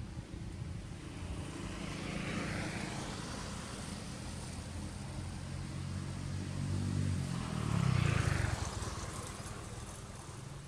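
A motor vehicle passing: a low engine hum with road hiss that grows louder, peaks about eight seconds in as its pitch drops, then fades.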